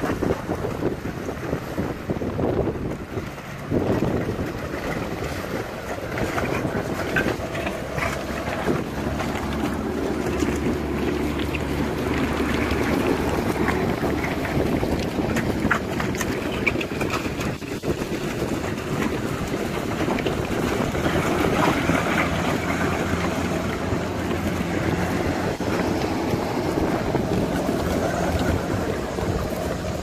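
Sherp all-terrain vehicle's diesel engine running steadily under load while driving off-road, with wind noise on the microphone.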